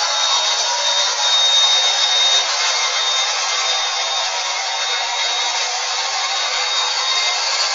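Bissell MultiClean Allergen Lift-Off Pet running steadily: an even motor and airflow rush with a thin high whine over it.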